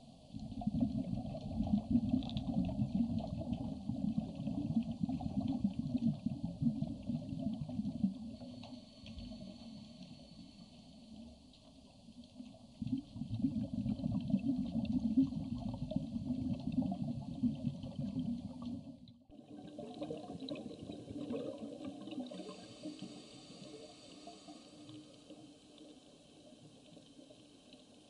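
Muffled rumble of moving water recorded underwater, heavy for several seconds, easing, then heavy again, breaking off suddenly about two-thirds through into a quieter, thinner water hiss.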